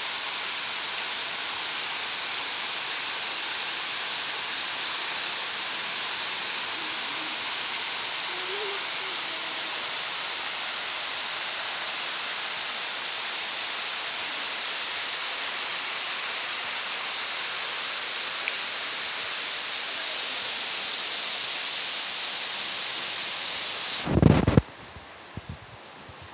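Steady rushing of a waterfall heard up close, a dense even hiss strongest in the high range. About two seconds before the end it cuts off abruptly to a much quieter background, with a few loud low thumps.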